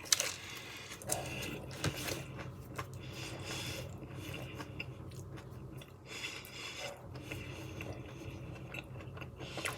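A person biting and chewing a slice of pizza topped with hot sauce: scattered soft crunching and mouth clicks over a low steady hum.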